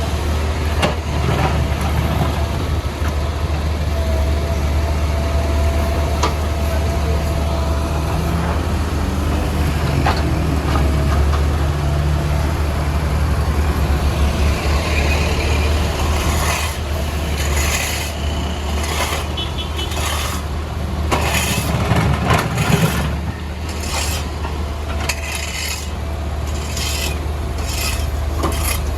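Backhoe loader's diesel engine running steadily under load. In the second half it is joined by a run of clanks, knocks and scraping as the bucket works against and breaks up the road surface.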